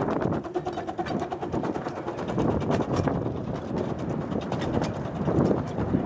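A miniature steam locomotive, a replica Darjeeling Himalayan Railway Class B 0-4-0 saddle tank, passes close by, followed by its passenger carriages rolling past on the 12¼-inch-gauge track. Dense, rapid clicking and clattering of wheels on rails runs throughout.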